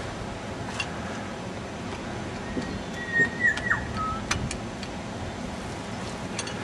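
Steady wind rumble on the microphone. About three seconds in comes a short whistle-like tone that drops in pitch at its end, followed by a brief lower note and a few sharp clicks.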